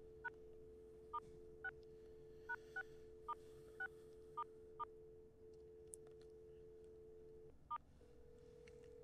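Telephone dial tone with ten touch-tone keypad beeps as a phone number is dialed, nine in quick succession and the last a few seconds later. The dial tone then stops and the ringback tone of the line ringing begins near the end.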